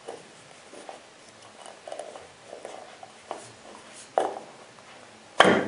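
Rifle scope's plastic flip-up objective lens cap being handled, with soft taps and rubs, a click about four seconds in, then a sharp snap near the end as the cap is flipped open.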